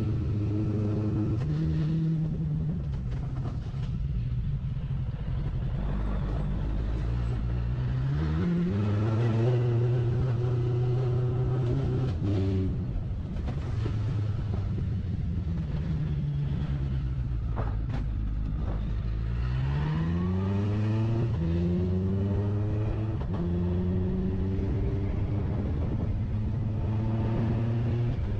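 Suzuki Bandit 1200S inline-four motorcycle engine heard while riding. The revs climb steeply twice, about a third and about two-thirds of the way in, as the bike accelerates, dropping back in between and running steadily otherwise. There is a brief knock near the two-thirds mark.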